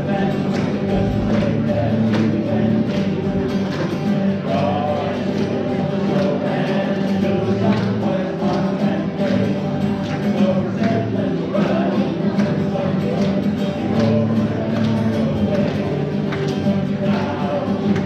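Live Christmas music: a group singing with instrumental accompaniment over a steady beat.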